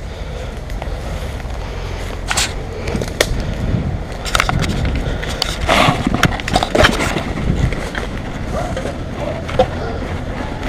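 Footsteps crunching through long dry grass and undergrowth, with leaves and twigs rustling and brushing against the camera, over a low wind rumble on the microphone. The rustling grows louder and busier around the middle.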